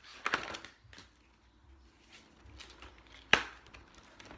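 Stiff pages of a spiral-bound flip book being leafed through by hand: a brief rustle of flipping pages just after the start, a few faint ticks, then one sharp slap as a page lands, about three seconds in.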